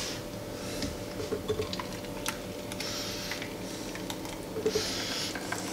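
Thick cake batter pouring from a plastic jug into a glass baking dish, quiet, with scattered light clicks and knocks of the jug and a faint steady hum underneath.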